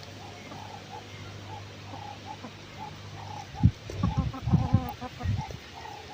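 Chickens clucking, short calls repeating about twice a second. From about three and a half seconds in, a run of loud low thumps and knocks covers them for about two seconds.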